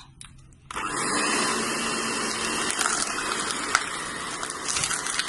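Electric hand mixer beating margarine, brown sugar and honey into a creamy mixture. It starts up under a second in, then runs steadily with a faint hum.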